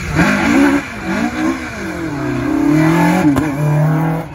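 Rally-prepared Mk2 Ford Escort launching from the start line: the engine is held at high revs, then the car accelerates away through the gears, its pitch climbing and dropping back at each change. There is a sharp crack about three seconds in, and the sound cuts off suddenly near the end.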